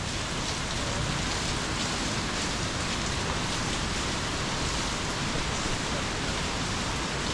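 Heavy rain falling steadily: an even, unbroken hiss of rain.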